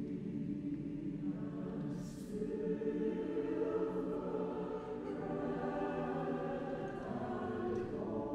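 Large chorus singing long, sustained chords of a Christmas anthem, swelling louder about two and a half seconds in.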